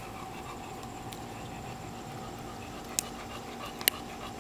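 A dog panting steadily, with two sharp clicks about three and four seconds in.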